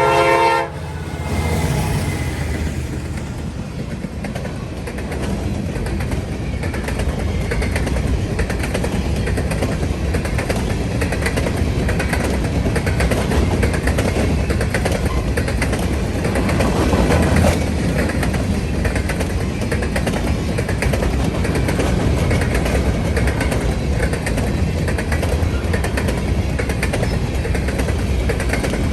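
A train horn chord cuts off within the first second, followed by the steady, loud rumble of a train running past.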